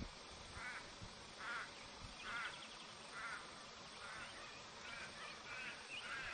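A bird calling over and over in short calls, roughly one a second, about eight in all, over a steady faint hiss.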